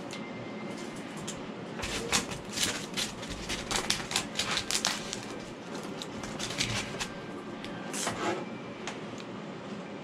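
Handling noise as the hot knife and foam board are handled: a run of crackling clicks and scrapes from about two to five seconds in, with shorter bursts a little later, over a steady low hum.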